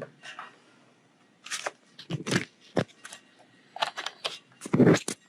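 Irregular sharp clicks and knocks of metal CNC machine parts and screws being handled and fitted by hand, with a heavier clunk near the end.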